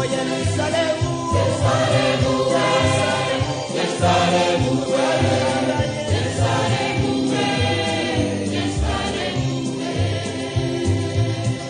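Gospel choir singing with instrumental accompaniment; the voices stop at the very end while the instruments carry on.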